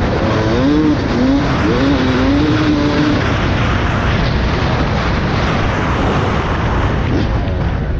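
Yamaha YZ250 two-stroke dirt bike engine revving up and down while riding, under heavy wind rush on the microphone. The engine note rises and falls clearly in the first few seconds, then the wind noise covers it.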